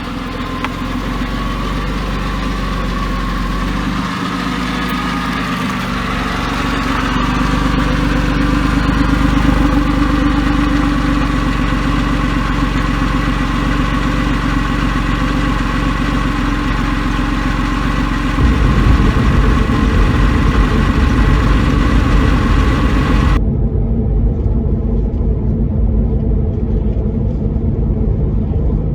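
Porsche 996 Carrera 4S's M96 flat-six engine running steadily, probably at idle, and sounding well, with none of the earlier ticking that the owner put down to a sticky hydraulic lifter. About two-thirds through, the low rumble turns rougher and louder, and a few seconds later the sound turns suddenly muffled.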